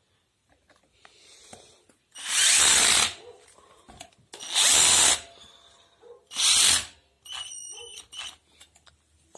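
Power drill run in three short bursts, driving screws into the floor fan's motor housing as the grill is fitted, followed by a quieter rattle near the end.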